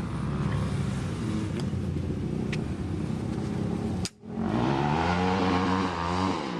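A vehicle engine running steadily, then revving up and down after a brief dropout about four seconds in.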